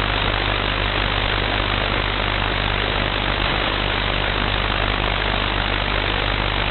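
Shortwave receiver's audio filled with a steady, loud rushing noise: strong interference covering the band from about 5.5 to 13.6 MHz that drowns out stations. It has a low steady hum underneath.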